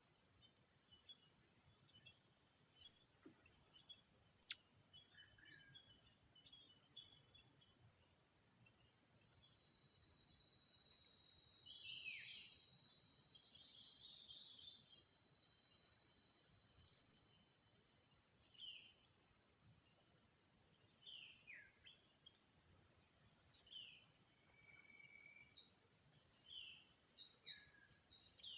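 A steady, high-pitched insect drone with small birds giving short, sharp high chirps in little clusters, loudest about three seconds in. A few softer, downward-sliding calls come now and then.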